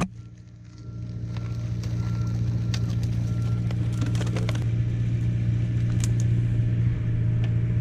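Loader engine running steadily, with a few clicks and knocks about three to four and a half seconds in.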